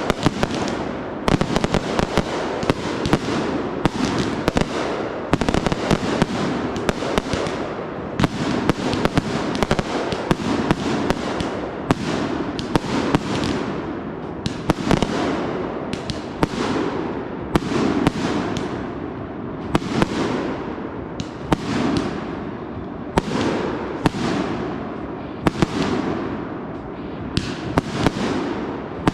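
Consumer fireworks going off without a break: sharp bangs, often several a second and irregularly spaced, over a constant crackle and hiss.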